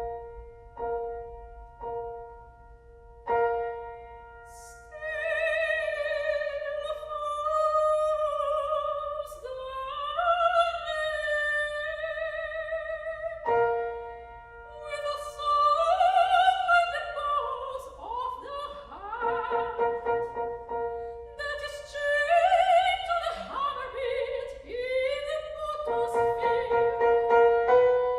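Soprano singing in a classical, operatic style with wide vibrato, accompanied by piano. The piano plays alone for the first few seconds before the voice enters.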